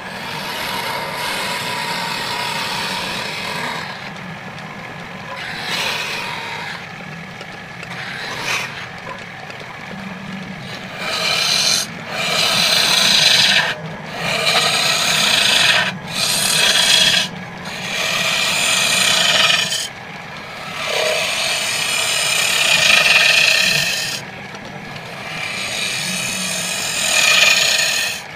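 Hand-held chisel cutting into a pale wooden blank spinning on a wood lathe, hollowing the end: a rough scraping of wood being cut, over the lathe's steady low hum. In the second half the cutting comes in a run of strokes of a second or two each, with short breaks between them.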